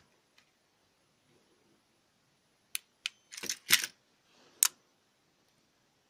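Sharp clicks and brief handling rattle as the 12 V charger's barrel plug is pulled from a homemade relay power-bank board: two quick clicks, a short clattering burst, then one last sharp click.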